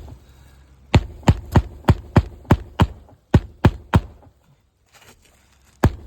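Hammer driving roofing nails through an asphalt shingle into the roof decking, in sharp, evenly paced blows about three a second: a run of about seven, a short pause, three more, then after a quiet gap another run begins near the end.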